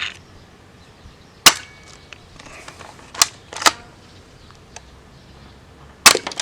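Toy gel-ball blaster firing single shots: four sharp pops, irregularly spaced, two of them close together in the middle.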